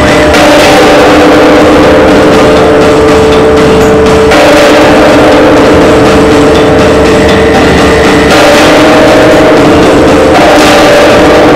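Live electronic noise music from a modular synthesizer and electronics: a loud, dense wall of noise with droning tones underneath. The drones shift abruptly about four seconds in and again near eight seconds.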